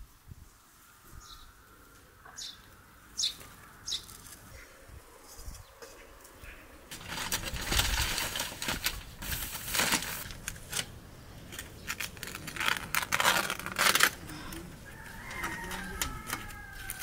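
Aluminium foil crinkling and rustling as it is handled and folded around a sandwich, starting about seven seconds in as a run of loud crackly bursts that ease off near the end.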